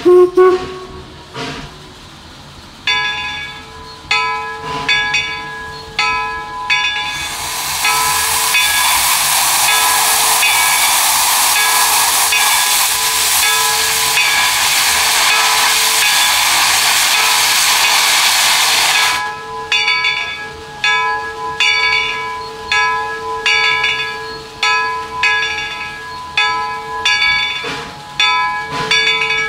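Steam locomotive bell ringing with steady repeated strokes, with a loud hiss of venting steam for about twelve seconds in the middle. A sharp knock comes right at the start.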